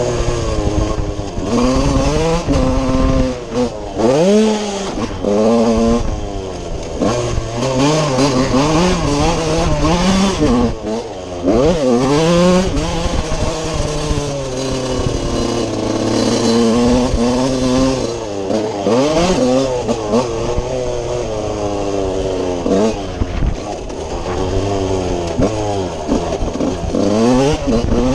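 TM Racing 125 single-cylinder two-stroke motocross engine revving up and falling back over and over as the rider works the throttle, with brief drops when the throttle is shut, heard on board the bike.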